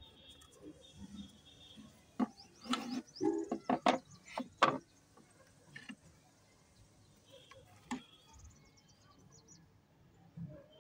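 Flat slabs of pink shale stone being handled and laid on one another, giving a quick series of sharp stony knocks and clacks a couple of seconds in, then quieter scraping.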